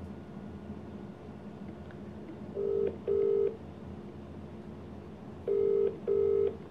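Phone ringback tone over a phone's speaker as an outgoing call waits to be answered: two double rings, each a short pair of steady low buzzing tones, the British-style 'ring-ring' cadence.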